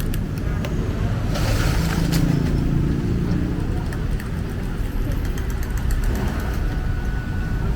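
Street traffic: motor vehicles running and passing, a steady low rumble, with a short hiss about one and a half seconds in.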